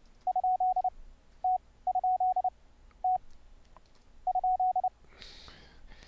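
Morse code sidetone from the CW Maestro DOS keyboard program, a single steady beep keyed at high speed. It sends question marks (dit dit dah dah dit dit), each after a single dah for the letter T, three question marks in all.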